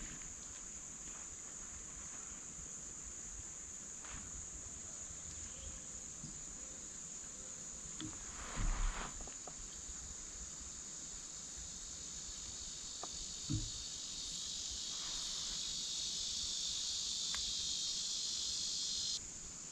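Insects droning steadily with a high, even buzz, joined about twelve seconds in by a second, lower insect buzz that grows louder and then cuts off suddenly near the end. A brief rustle about nine seconds in.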